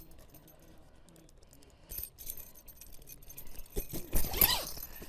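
Metal zip pullers clinking and jingling as they are handled, with a few light clicks about two seconds in and a louder cluster of clinks near the end.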